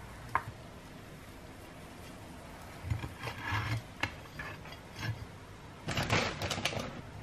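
Rubbing and scraping on a wooden board as a crusty bread sandwich and a ceramic plate are handled, with a short click about half a second in and the longest, loudest scrape about six seconds in.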